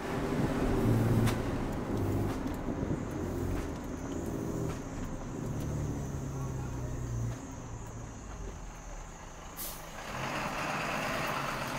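Truck engine running under load as it carries riders up a mountain road, its low drone shifting pitch several times. A short hiss comes about ten seconds in.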